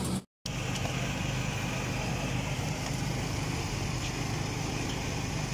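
A steady, low mechanical hum like an idling engine, over an even background noise. The sound drops out completely for a moment just after the start.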